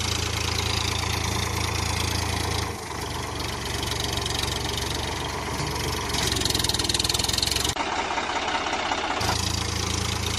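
A small motor running steadily with a low hum, its sound changing abruptly about three seconds in and again near the end.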